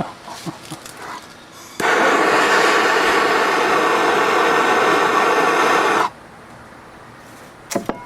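Impact wrench hammering on a stuck cylinder-head bolt of a 1997 Johnson 115 outboard, starting about two seconds in and running steadily for about four seconds before cutting off. This was a little extra long time for that bolt.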